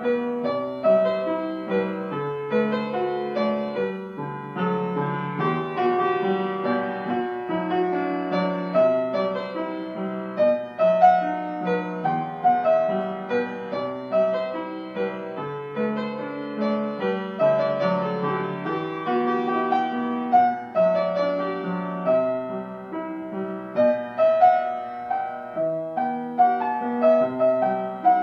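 Solo piano music: a steady flow of sustained notes.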